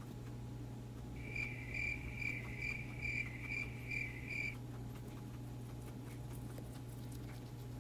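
Guinea pig giving a high-pitched call at a steady pitch, pulsing about eight times over three seconds, starting about a second in and stopping abruptly.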